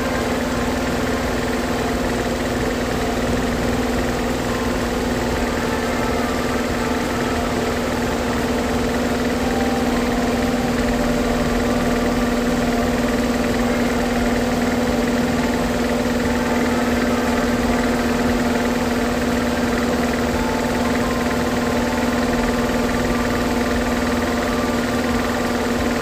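Steady machine hum with a constant low tone, unchanging throughout.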